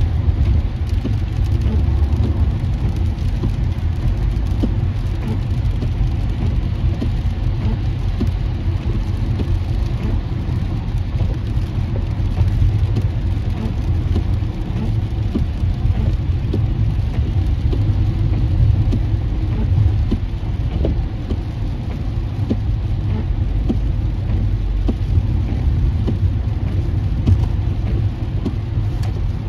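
Steady low rumble inside a car cabin while driving on a rain-soaked freeway: tyres on the wet road, with rain hitting the windshield.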